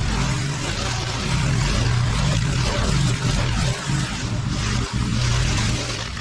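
Petrol walk-behind rotary lawn mower running steadily under load as it is pushed through thick, overgrown long grass and weeds: a constant engine hum with a dense hiss over it.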